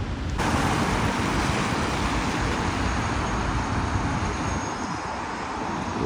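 Steady rushing noise of distant engines, starting abruptly less than half a second in and easing slightly near the end.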